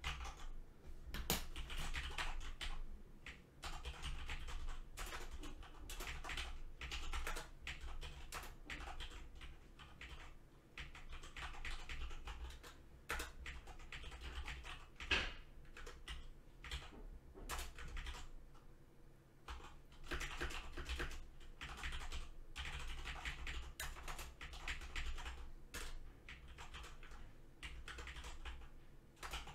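Typing on a computer keyboard, quick key clicks in bursts with short pauses between them.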